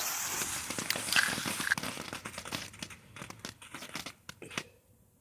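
Novelty tank firework spraying sparks: a hiss full of sharp crackles that dies away about four and a half seconds in.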